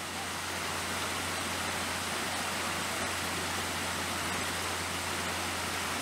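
Steady, even hiss of outdoor background noise with a low hum underneath; no distinct events.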